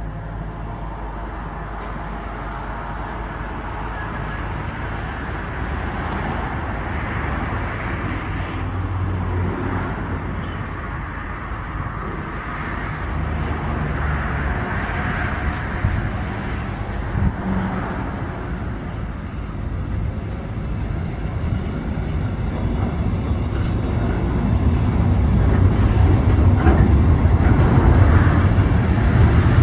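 Intermodal freight train of container and swap-body flat wagons rolling past at close range: a steady rumble of steel wheels on the rails that grows louder toward the end, with a couple of sharp clicks about two-thirds of the way through.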